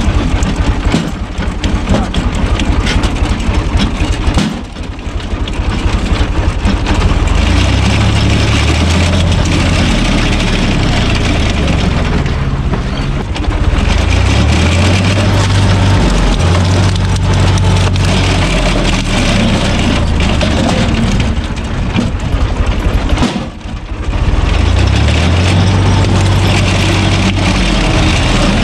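UTB U445 DT tractor's diesel engine running steadily while it drives a PTO screw-cone log splitter. The engine note sags and recovers as the spinning cone bores into and splits rounds of firewood, with two brief lulls, one a few seconds in and one near the end.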